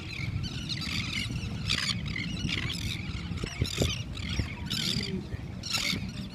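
A feeding flock of gulls calling over and over, many short high cries overlapping in bursts, above a steady low rumble of wind and water.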